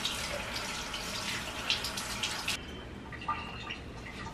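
Handheld shower spray running onto a small dog's coat in a small tiled bathroom, cutting off abruptly about two and a half seconds in.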